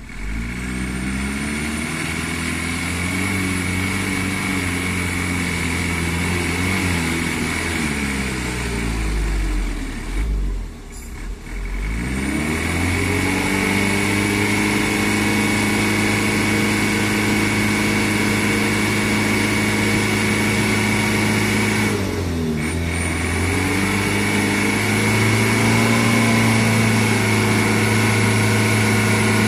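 Mitsubishi light-duty diesel dump truck's engine revved hard and held at high revs, straining under a heavy load to pull through deep mud. The revs sag and drop out briefly about ten seconds in, dip again a little after twenty seconds, and climb back each time.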